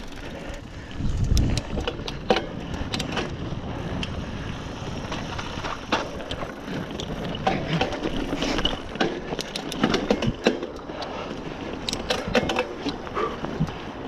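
Specialized Rockhopper hardtail mountain bike ridden over a dirt trail: tyres rolling on the dirt, with the chain and frame rattling and sharp clicks and knocks over bumps throughout.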